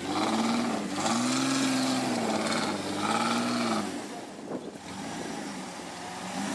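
An off-road 4x4's engine revving up and falling back about three times in quick succession, then settling to lower, steadier running for the last couple of seconds.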